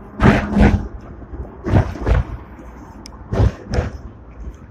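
Sixth-generation Hong Kong double-deck tram's wheels clacking over rail joints: paired knocks, about one pair every second and a half, over a low running rumble.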